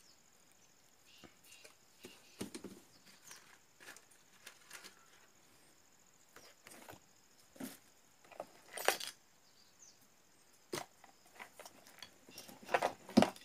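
Scattered light clicks, knocks and rustles of handling, the loudest about nine seconds in and a cluster near the end, over a faint steady high whine.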